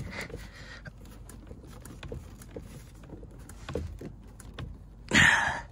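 Faint small clicks and knocks of hands handling a car door speaker and its snap-in grill, with a short, louder noise about five seconds in.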